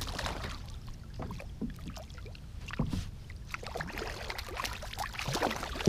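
Hooked trout splashing at the water's surface: a run of short, irregular splashes, with one sharper, louder hit at the very end.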